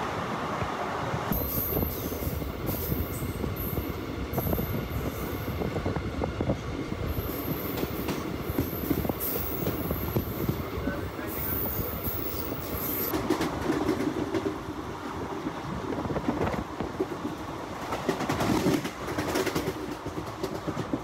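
Express train coach running over the rails, heard from its open doorway: a continuous rumble with wheels clattering over rail joints and points, and a high-pitched wheel squeal on and off through the first half or so.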